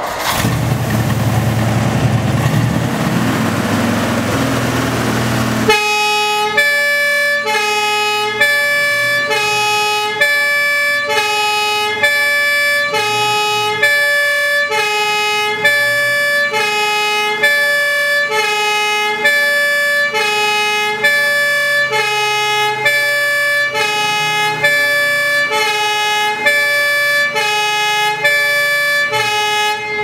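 A vintage Ford F600 fire truck's two-tone siren sounding hi-lo, two pitches alternating evenly about three times a second, loud. It starts about six seconds in, after a steady rushing noise.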